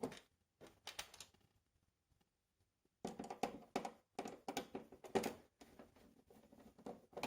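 Irregular clicks, scrapes and rattles of a screwdriver working screws out of a plastic TV housing. The handling sounds are sparse at first, then come thick and fast for a couple of seconds from about three seconds in.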